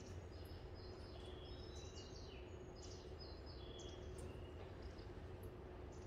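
Rapid, birdlike chirping: many short high notes at several different pitches, thinning out near the end. Under it runs a steady low hum with a low rumble.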